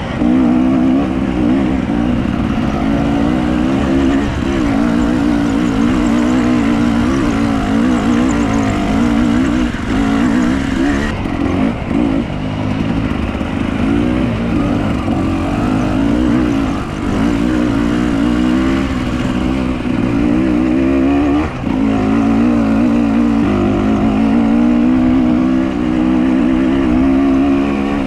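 Motor vehicle engine running continuously under changing load, its pitch rising and falling without a break.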